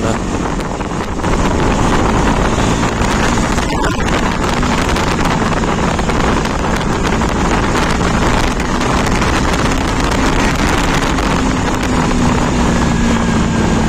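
Wind rushing over the microphone of a moving KTM Duke 250 motorcycle, with its 248.8 cc liquid-cooled single-cylinder engine running underneath. The noise is steady and gets louder about a second in.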